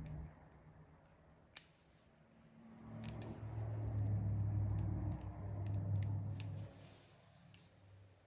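Small metallic clicks and one sharp tap from LS rocker-arm and trunnion parts being handled and fitted, with a low steady hum for a few seconds in the middle.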